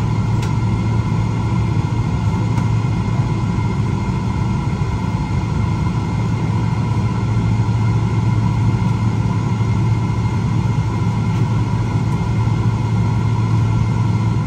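Boeing 777-300ER cabin noise while taxiing, its GE90-115B engines at idle: a steady low rumble with a thin steady whine on top.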